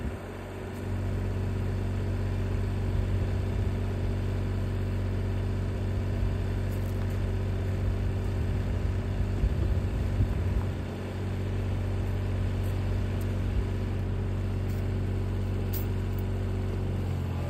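Mini excavator's diesel engine running steadily. It steps up in level about a second in.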